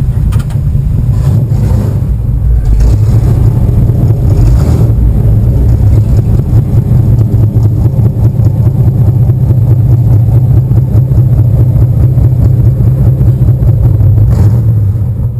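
1964 Pontiac Catalina's V8 engine running loud and steady with a deep low rumble, building slightly over the first few seconds and then holding even.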